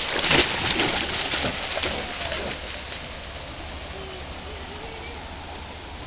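A parti poodle leaping and splashing through shallow creek water, loud and choppy for the first two and a half seconds. After that comes the quieter steady rush of the stream.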